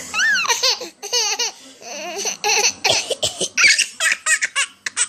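A seven-month-old baby laughing: a string of short, high-pitched giggles in quick bursts, with brief pauses about a second and two seconds in.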